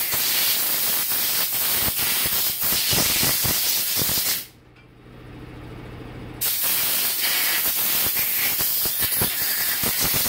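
Compressed-air blow gun blowing out the freshly reamed bores of an aluminium 4L60E valve body to clear machining chips: a loud, steady hiss of air, stopping about four and a half seconds in and starting again about two seconds later.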